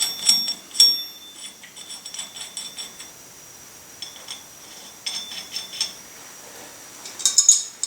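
Steel lug nuts clinking against each other and the wheel stud as they are handled and threaded on to double-nut the stud. The clinks are short and ringing and come in three bunches: right at the start, about four to six seconds in, and near the end.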